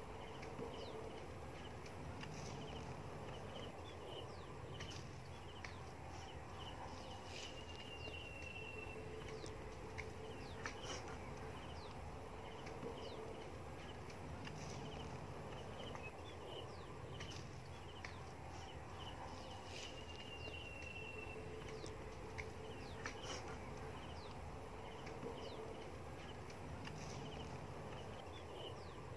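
Steady outdoor background hiss and hum, with a few short high chirps and scattered faint clicks and taps.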